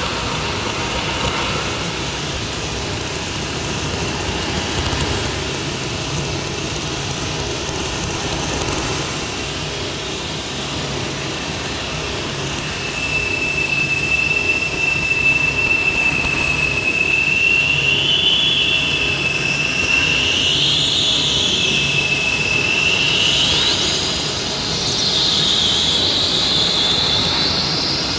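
Abstract experimental noise collage played from a cassette: a dense, grainy rumble and hiss with a throbbing low texture. About halfway in, a thin high whistle enters and the level steps up. Toward the end the whistle warbles and swoops upward in repeated arcs, like screeching metal.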